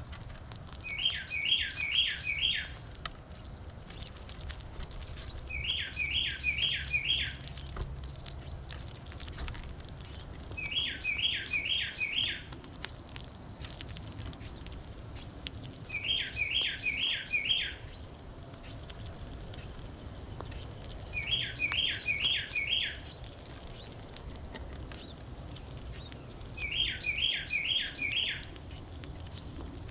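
A songbird sings the same phrase six times, about every five seconds, each phrase four quick down-slurred whistled notes. Faint clicking and crunching between the phrases comes from a gray squirrel husking seeds close by.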